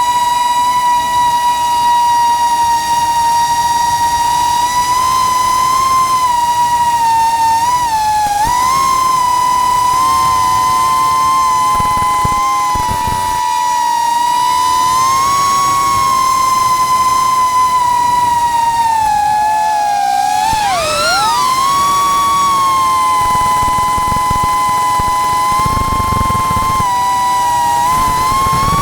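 FPV quadcopter's brushless motors whining steadily at a high pitch. The pitch dips and wavers briefly about 8 seconds in, then swoops down and back up around 20 seconds in as the throttle changes.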